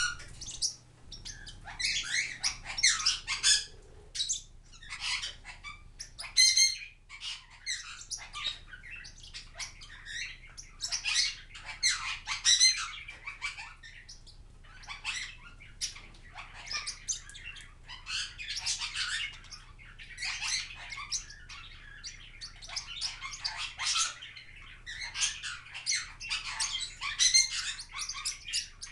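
Small green parrots chattering and squawking in rapid bursts of high, scratchy chirps, with short pauses between the bursts.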